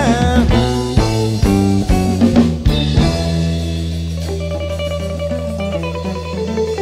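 Live band music with no singing: an electric bass guitar and a drum kit. The drums hit busily for about three seconds, then a long held low bass note carries on under lighter playing.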